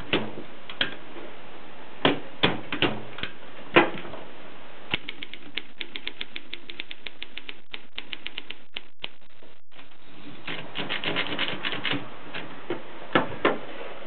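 1950s Voss manual typewriter being typed on: sharp key strikes in irregular clusters, with a fast, even run of light ticks in the middle and two loud strikes near the end.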